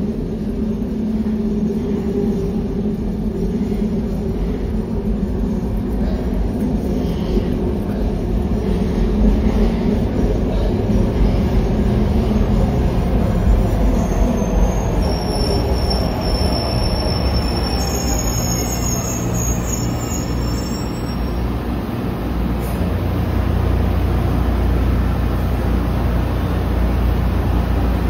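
SEPTA Market-Frankford Line train running on the tracks: a pitched motor whine at first that fades, then a high-pitched wheel squeal for several seconds from about halfway, and a heavier low rumble near the end.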